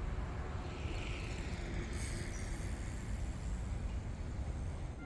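Road traffic noise: a steady low rumble with a vehicle passing, its tyre noise swelling and fading about a second in.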